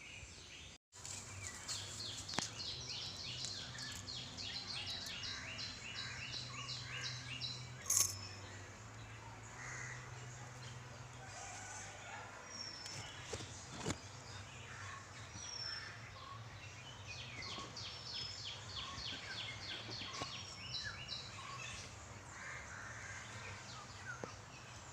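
Wild songbirds singing at dawn: two long runs of fast, rapidly repeated high trilling notes with scattered chirps between, over a faint low hum. A sharp click about eight seconds in is the loudest moment, and the sound drops out for a split second about a second in.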